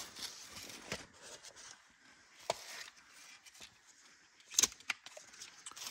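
Quiet handling noise from a tape measure: a few light clicks and rubs spaced out over several seconds, with a small cluster of clicks near the end.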